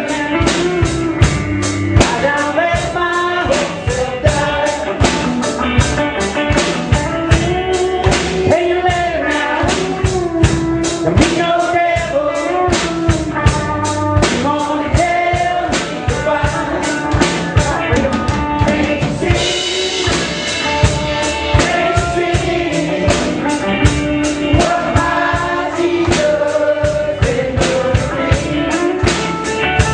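A band playing a rock song, with a steady drum-kit beat under a lead melody and cymbals washing in a little past the middle.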